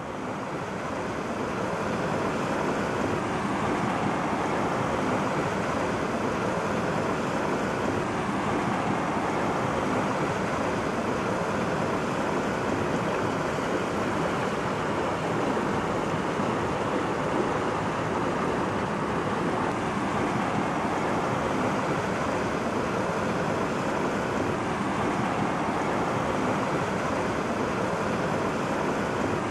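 Mountain stream rushing steadily, an even wash of water noise that fades in over the first couple of seconds.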